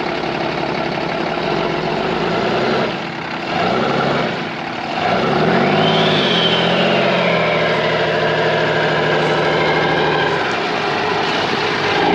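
Dodge Ram 2500 pickup's engine running, its pitch rising about five seconds in and then slowly falling back as it keeps running.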